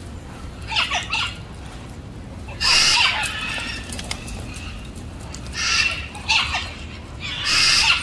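A flock of macaws flapping their wings and squawking, in about five short bursts, the loudest about three seconds in.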